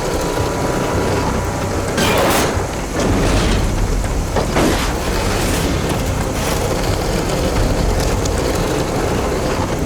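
Heavy tow truck's diesel engine running with a low rumble, over wind noise, with a few metallic clanks about two seconds in and again near five seconds as the recovery line is rigged.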